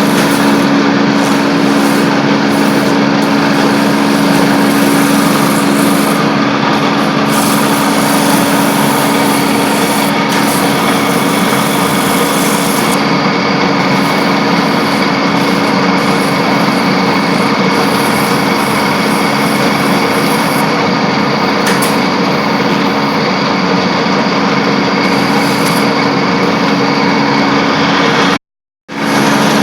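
Wood copy lathe running steadily while turning balusters: a steady machine hum over a dense rushing noise. It cuts to silence for about half a second near the end.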